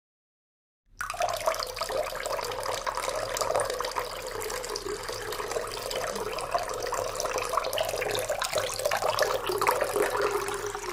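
Water running steadily from a tap into a sink, starting about a second in and stopping near the end.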